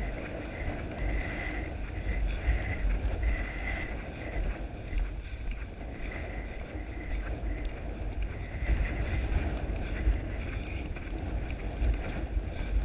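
Wind buffeting the microphone of a camera on a horse being ridden along a grass track, with the muffled beat of the horse's hooves on turf under the rumble.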